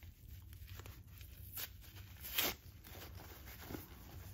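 Faint rustling and crinkling of paper towel packing as it is unwrapped by hand, with small scattered clicks and one louder crinkle about two and a half seconds in.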